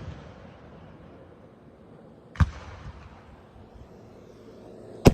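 Large aerial firework shells bursting: a sharp bang about halfway through with a rumbling echo that dies away, and another bang right at the end. The fading rumble of an earlier burst trails off at the start.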